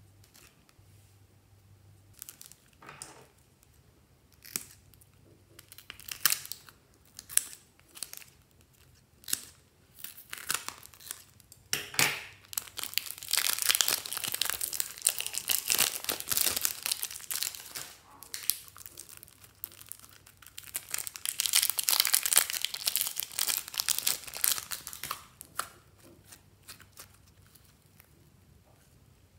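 Plastic piping bags filled with slime crinkling as they are handled, at first in scattered short crackles. Then come two long stretches of dense, loud crinkling and crackling as the white slime is squeezed out of its bag.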